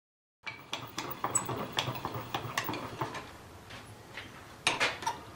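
Irregular metal clicks and clinks from the cross-feed screw and ball crank handle on a 1940 Hercus lathe saddle as the handle is spun. There is a louder clatter of metal near the end.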